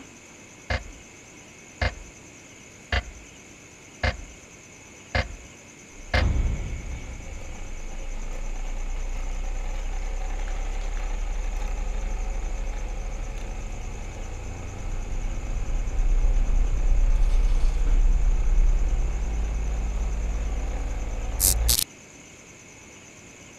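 Wall clock ticking about once a second, then about six seconds in a sudden loud low drone takes over and holds for some fifteen seconds. It swells in the second half and cuts off abruptly after a brief sharp high sound near the end.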